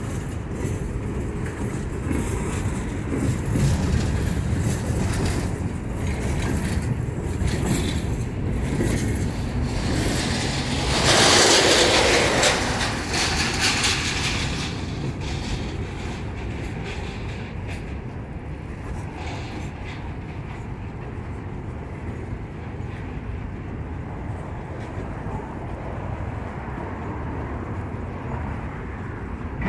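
A cut of freight cars (boxcars and a tank car) rolling past at close range on yard track, the wheels clacking over the rails. A louder rushing noise swells for about three seconds near the middle, and after it the rolling sound goes duller and a little quieter.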